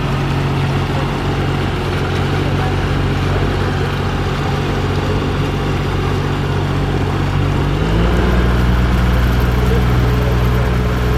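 Motorboat engine running steadily under a constant rush of wind and water noise. About eight seconds in, its pitch steps up and it gets slightly louder as the throttle is opened.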